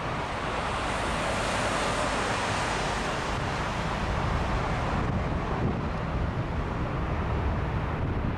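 Four-engined Airbus A340 airliner's jet engines as it rolls along the runway, a steady rushing hiss. Wind buffets the microphone in a low rumble that grows from about halfway through.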